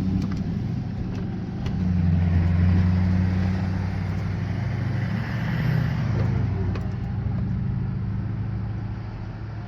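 A road vehicle driving along, its engine running with a steady low hum that swells about two seconds in and eases off near the end.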